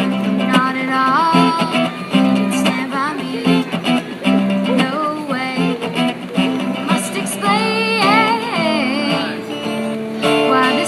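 Live music: a guitar strummed and plucked under a singer's voice, the melody line bending and wavering with a held, vibrato-like note about eight seconds in.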